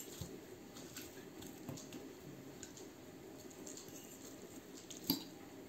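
Faint scraping and light clinking of a metal fork and spoon against a ceramic plate while blanched salt cod is flaked apart, with one sharper clink about five seconds in.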